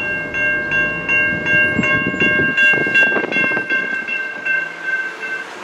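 Railroad crossing bell ringing about three times a second while the gates rise behind the passed train, falling silent near the end. Under it the low rumble and clatter of the departing freight fades out about halfway through.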